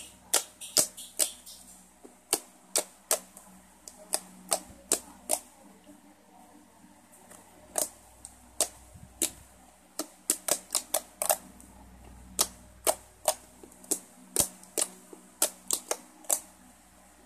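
Thick, glossy milky slime made from glue, lotion and soap being poked, pressed and stretched by hand, giving irregular sharp clicks and pops, at times several a second.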